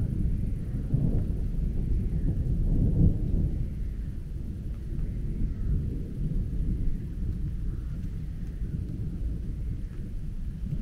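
Thunder rumbling low, swelling about a second in and again about three seconds in, then dying away to a quieter rolling rumble.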